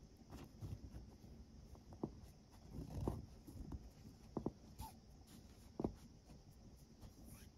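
Nylon paracord being wrapped and pulled tight by hand, with faint rustling and scraping of the cord and a few short, soft knocks.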